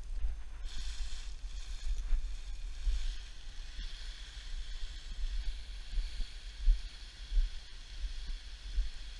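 Wind buffeting the camera microphone in uneven gusts, with a steady higher hiss that comes in a little under a second in.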